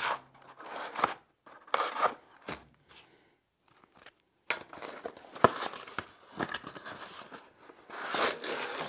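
A knife slitting the tape on a cardboard mailing box, then the box and its paper packing rustling, scraping and crinkling in short, irregular bouts as the package is opened and unwrapped. There is a quiet pause about midway.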